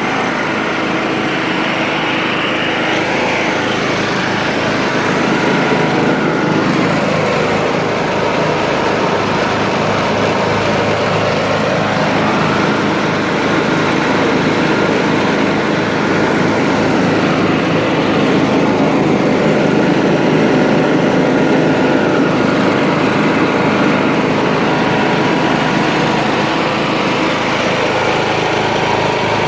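Engine of a 2010 Troy-Bilt Pony riding lawn mower running steadily, swelling slightly in loudness a few times.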